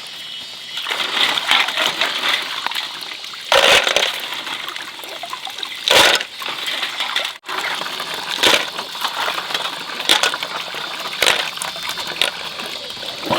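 Water splashing and sloshing, with a few sharper knocks or cracks spaced a second or two apart.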